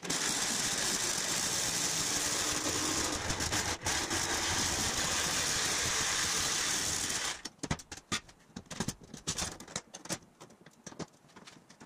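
Jigsaw running and cutting through an old spring-steel masonry saw blade for about seven seconds, with a brief break near four seconds. After it stops, there is a run of irregular short scrapes and taps as the cut steel edge is worked by hand.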